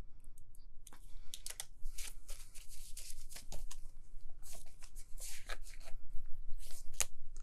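Paper dollar bills rustling and flicking as they are counted by hand and slipped into clear plastic zippered binder pouches, with the plastic crinkling: a run of short, irregular rustles and clicks.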